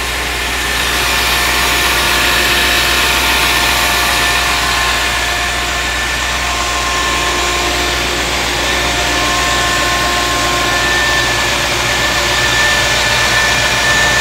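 Land Rover Discovery's 4.0 V8 engine idling steadily with a constant whine over it. This is the running state after startup, once the brief cold-start knock has gone away.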